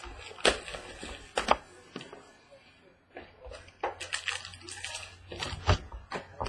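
A sealed trading card box being handled and opened: irregular crinkling of the wrapper and sharp taps and clicks of cardboard and cards.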